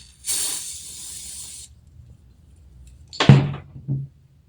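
A hiss lasting about a second and a half, like a short burst of air, followed near the end by a brief vocal sound.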